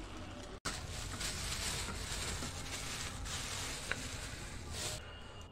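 Crinkling of a black plastic bag as raw chicken pieces are tipped out of it into a steel bowl, an uneven rustle that swells and fades and stops about five seconds in.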